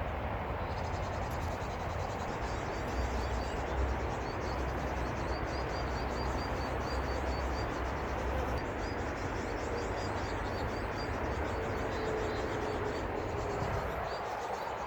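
Outdoor nature ambience: a steady rushing hiss with a low rumble, and rapid high-pitched chirping from small creatures starting about a second in. It cuts off abruptly at the end.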